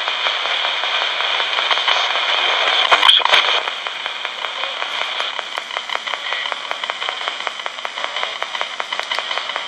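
RadioShack pocket AM radio scanning the AM band as a ghost box. It gives a steady hiss of static, chopped by rapid clicks as it steps from station to station, with a louder crackling burst about three seconds in.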